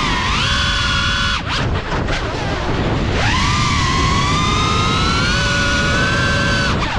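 GEPRC Cinelog 35 FPV cinewhoop drone's brushless motors whining in flight over wind noise. The pitch drops sharply as the throttle is cut about one and a half seconds in, climbs back to a steady whine that slowly rises, and dips again near the end.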